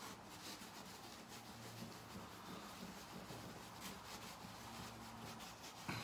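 Faint rubbing of a polishing cloth over a tarnished brass door handle backplate, in quick back-and-forth strokes, with a low steady hum underneath.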